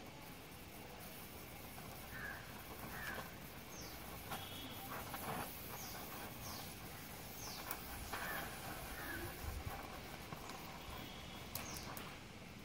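Gas welding torch flame hissing steadily as it heats and welds a motorcycle silencer pipe, with birds calling several times in short high chirps and a few faint ticks of metal.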